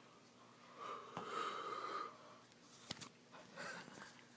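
A person's forced yawn: one drawn-out, breathy exhale lasting about a second. A single sharp click follows about three seconds in.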